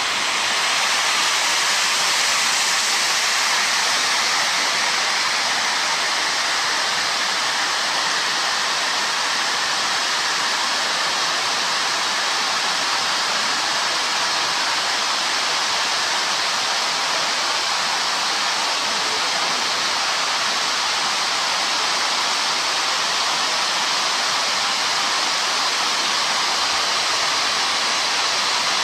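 Two ZX9066A three-layer firework wheels burning, their drivers giving off a steady, loud hiss of spraying sparks as they spin.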